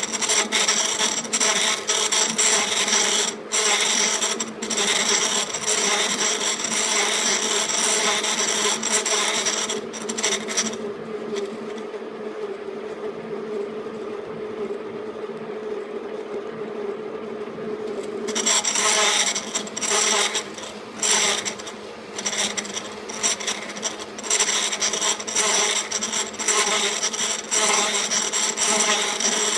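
KART E1N metal lathe running with a steady hum while a cutting tool works the metal, giving a harsh scraping noise. The cutting stops for several seconds in the middle, leaving only the hum, and then starts again.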